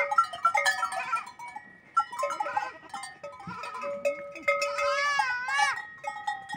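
Goat bells clanking irregularly among a herd of goats, with one goat bleating about five seconds in.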